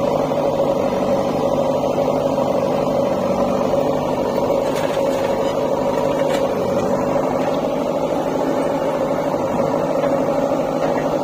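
JCB 3DX backhoe loader's diesel engine running at a steady speed while its backhoe arm works.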